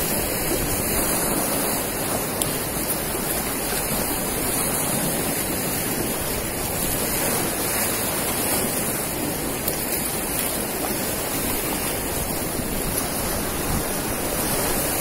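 Steady rushing noise of sea surf washing onto a sandy beach, unbroken throughout and cutting off suddenly at the end.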